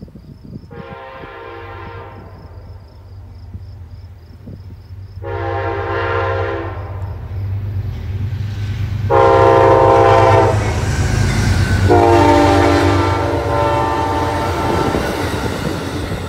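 Amtrak Empire Service passenger train's locomotive horn sounding four chord blasts as the train approaches, the last one the longest. Under the horn, the low rumble of the diesel locomotive and the rush of the train grow louder until it passes.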